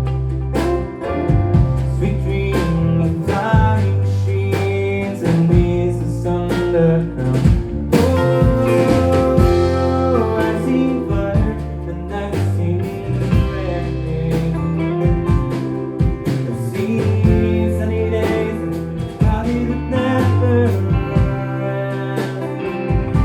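Live band playing a country-rock song: guitar over a bass line and a steady drum beat.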